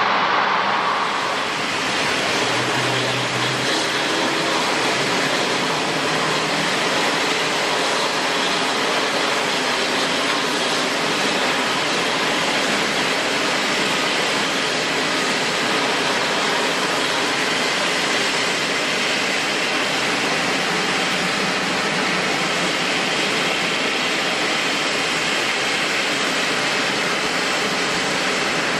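Steady, unchanging rushing noise of a Japan Airlines Airbus A350's Rolls-Royce Trent XWB jet engines running.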